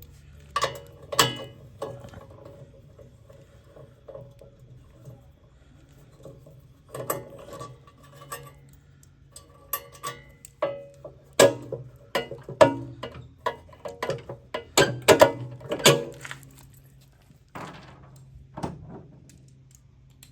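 Irregular metallic clinks and clatter of hand tools, bolts and washers being handled while parts are unbolted from a Classen TR-20 power rake, busiest in the second half.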